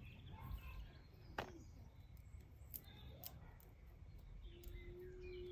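Very quiet outdoor scene with a few faint, sharp snaps and crackles as a flattened nettle stem is broken in small sections by hand and the pith pulled out.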